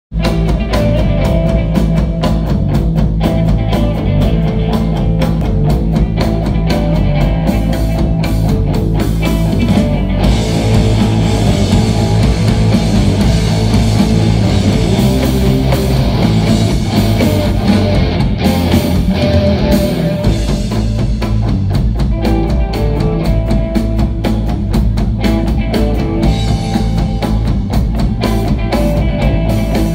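Rock band playing live on electric guitars and drum kit, loud and dense. Rapid drum strokes in the first third and again near the end, with a smoother, sustained wall of guitar in between.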